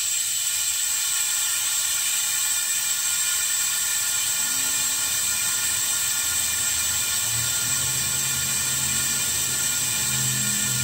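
Compressed air hissing steadily through a venturi-type vacuum coolant refill tool as it pulls a vacuum on the car's cooling system to purge air before refilling with coolant. A low hum joins about two-thirds of the way in.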